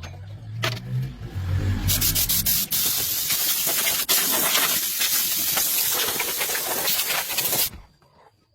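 Loud steady spraying hiss that starts about two seconds in and cuts off suddenly near the end, after a low hum at the start.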